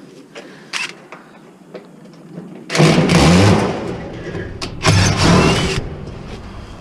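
Two bursts of a power tool's motor running, the first about a second and a half long, the second about a second.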